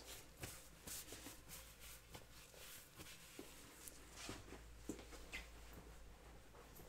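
Near silence: room tone with a low steady hum and a few faint, scattered light ticks and rustles.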